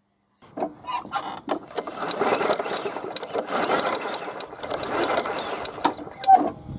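Lawn mower's recoil starter cord pulled repeatedly, the engine turning over without firing, its spark plug out and grounded on the metal cover to check for a spark. A whirring mechanical noise with many clicks starts about half a second in.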